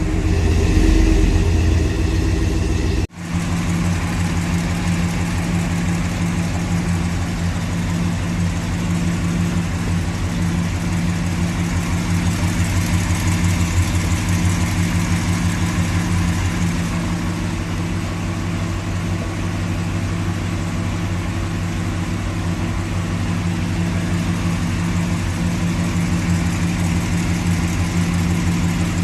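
Cammed 5.7-litre Hemi V8 of a 2014 Ram 1500 running steadily. The engine note shifts for the first few seconds, and the sound drops out for an instant about three seconds in before the steady running resumes.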